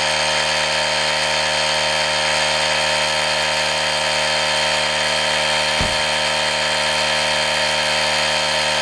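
Built-in electric air compressor of an Auxito AJ01 jump starter running steadily as it inflates a low car tire. A brief low thump sounds about six seconds in.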